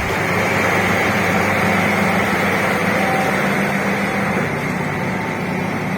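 Heavy diesel engine of earthmoving equipment running steadily: a low, even hum under a broad rushing noise.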